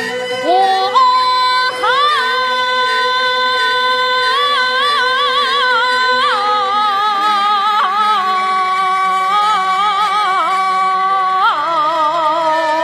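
A Peking opera laodan (old-woman role) female voice singing the long, drawn-out line '我好心伤' ('my heart is so grieved'), with held notes that slide and waver. A Chinese fiddle accompanies the singing.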